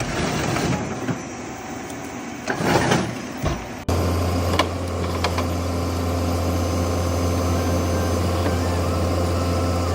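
Heavy machinery noise that cuts suddenly about four seconds in to a heavy vehicle engine running steadily, with a constant low hum.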